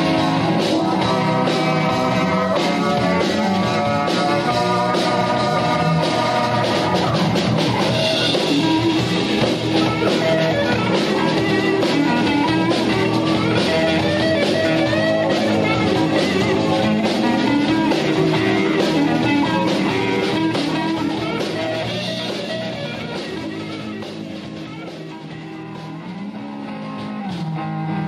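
Live blues band playing: electric guitar, Hammond organ, bass guitar and drum kit. The music drops quieter a little after twenty seconds in, then builds back up near the end.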